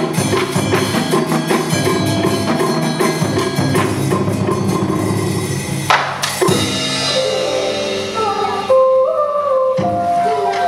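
Live traditional Vietnamese ensemble music: dense, fast drum and wood-block percussion, a loud single strike about six seconds in, then a melodic instrument playing a stepping tune over lighter accompaniment.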